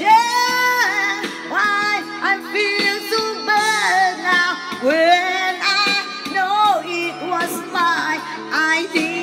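A woman singing a melody over a backing music track, with long held notes and sliding pitch.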